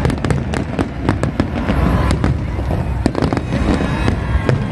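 Large aerial fireworks display: a dense, rapid string of sharp cracks and bangs from shells bursting overhead, over a steady low rumble.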